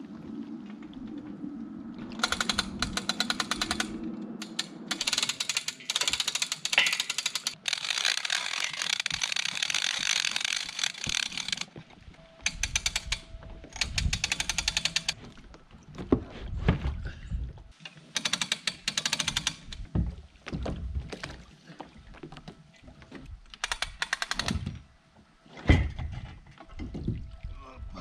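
Hand-crank winch ratcheting: rapid, evenly spaced clicks in bursts of a few seconds, with water sloshing around the floats and a few low knocks.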